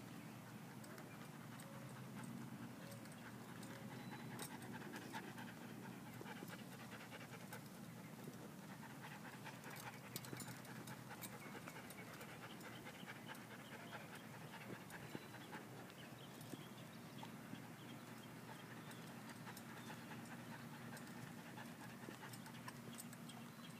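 A dog panting, faint and steady, with light scattered clicks underneath.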